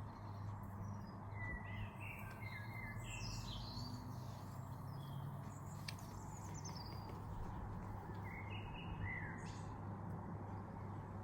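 Small birds chirping in short phrases, about two seconds in, again past the middle and near the end, over a steady low hum and faint background noise.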